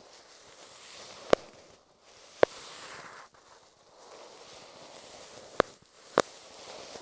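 A bonten fluff puff brushing and rustling over masking tape wrapped on an earphone microphone, close-up, with four sharp clicks spread through the rustling.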